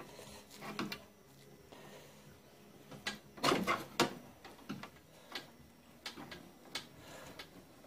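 Dent-repair tool clicking and knocking against the inside of a Volkswagen Beetle's steel door panel while the crease is worked from behind. The strikes are short and separate, about one every half to one second, and loudest near the middle.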